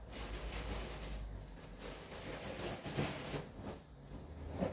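Fabric curtain rustling as it is pulled and bunched aside by hand, with two knocks, about three seconds in and near the end.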